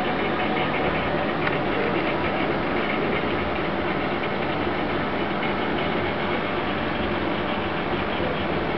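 Aquarium pump running, a steady rushing hum with water noise.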